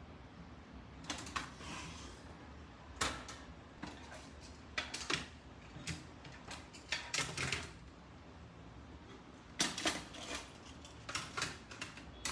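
Irregular clicks, clacks and knocks, some in quick little clusters, as art supplies and metal watercolour paint tins are handled and set down on a wooden tabletop.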